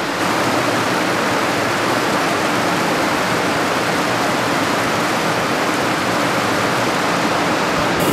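Steady rush and splash of falling water: wash water from the drum screens spraying seaborne debris off into the debris collection pit.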